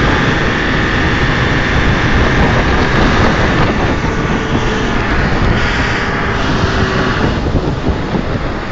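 Motorboat engine running steadily at speed, a loud continuous drone with a whine on top that fades near the end.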